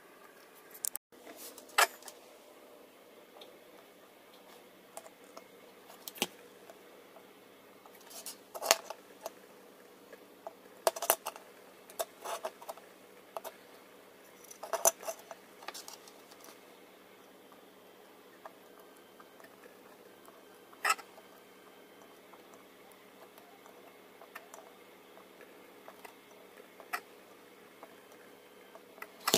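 Irregular small clicks and clinks of a printed circuit board with metal header pins being handled, set down on the bench and touched by a soldering iron and solder wire, with a faint steady hum underneath.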